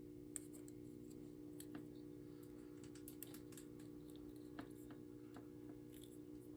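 Faint scattered clicks and crinkles of hands wrapping electrical tape around a wire-capped splice, over a steady low hum.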